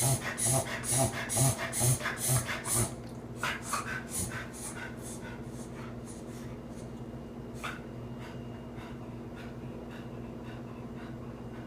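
Cocker spaniel in a fit of rapid, repeated wheezing breaths, about two a second, loud for the first three seconds, then weaker and more spaced until they fade out about halfway, over a steady low hum. The owner cannot explain the fits, which she describes as wheezing, sneezing and spasms.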